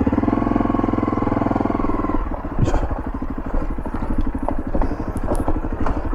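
Motorcycle engine revving up under load for about two seconds, then running lower and rougher, with scattered knocks and clatter as the bike jolts over a badly broken dirt road.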